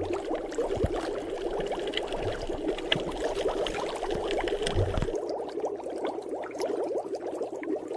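Water bubbling: a steady, dense stream of small bubbles popping, with a low rumble underneath for about the first five seconds.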